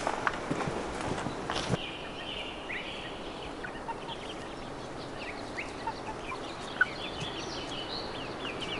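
Many short, high bird chirps and calls, starting about two seconds in, with a few footsteps before them.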